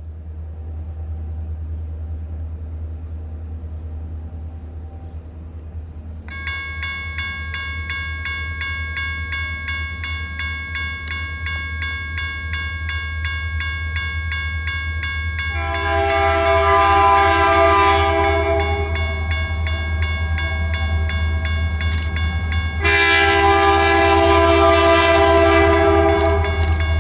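A General Signals Type 1 electronic crossing bell starts dinging rapidly about six seconds in as the crossing activates, over a steady low rumble. An approaching GP40-2 locomotive then sounds its Nathan K3L air horn, whose third chime is fouled and silent, in two long blasts, the first about sixteen seconds in and the second about twenty-three seconds in.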